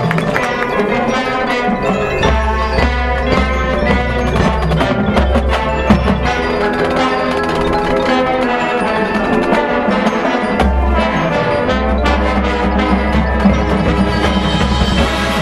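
High school marching band playing its field show, with bells and mallet percussion ringing over sustained wind chords and deep bass notes.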